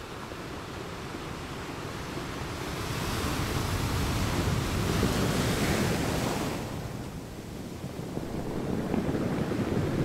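Small waves breaking and washing up a beach: a rushing hiss that swells to a peak about halfway through and dies away, with the next wave building near the end.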